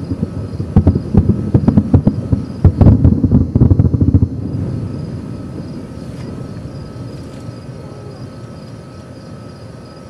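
Grand finale of a distant fireworks show: a rapid barrage of shell bursts, booms overlapping one after another, that stops about four seconds in and leaves a low rolling echo fading away.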